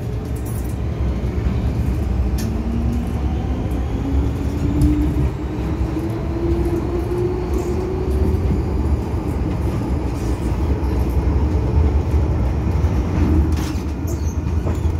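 MTR M-Train electric multiple unit running, heard from inside the passenger car: a steady low rumble of wheels on track, with a motor whine that rises slowly in pitch from about two to eight seconds in as the train picks up speed. A few short clicks come near the end.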